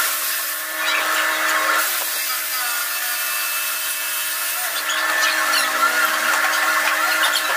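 Laser cutter cutting a wooden sheet: a steady machine hum and whine with a hiss over it, some tones wavering in the second half as the head moves.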